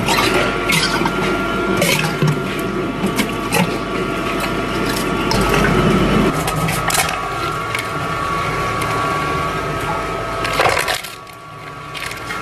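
Commercial electric meat grinder running with a steady whine and hum while chunks of raw meat are fed in, with dense crackling and clicking as the auger forces them through the plate. A louder burst comes near the end, after which it runs quieter.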